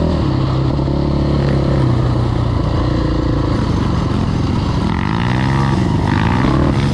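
KTM 525 XC quad's single-cylinder four-stroke engine running under way, a loud steady engine note, with the revs rising and falling a few times from about five seconds in.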